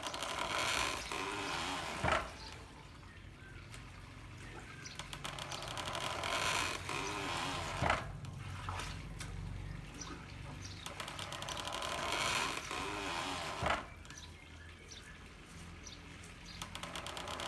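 Handmade water-powered corn mill: water from bamboo pipes runs and splashes steadily, and the mill strikes a heavy beat three times, about six seconds apart.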